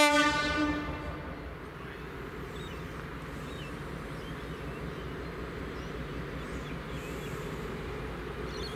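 Diesel locomotive 42103's horn sounds one short blast at the start, a single pitched note that dies away within about a second. Then the NSW 42 class locomotive's EMD 16-567C V16 engine runs with a steady low rumble as the train approaches.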